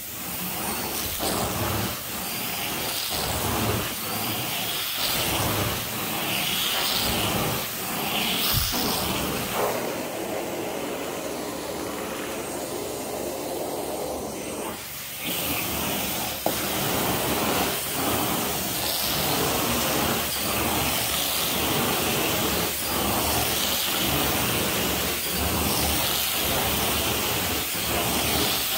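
Carpet extraction wand spraying and sucking as it is pushed and pulled across carpet, the hiss of the vacuum surging with each stroke, about one stroke a second. About ten seconds in, the strokes stop for roughly five seconds, then start again.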